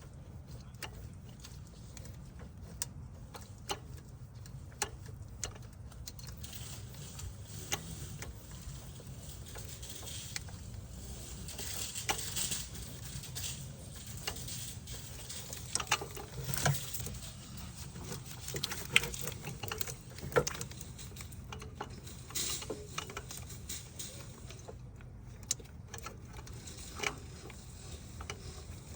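Scattered clicks and metallic knocks of hand tools working on car engine parts, louder in a few clusters, over a steady low hum.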